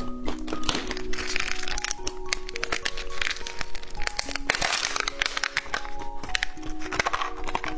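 Background music of short held notes, with many sharp cracks and patches of crinkling over it, the sounds of handling and eating snacks.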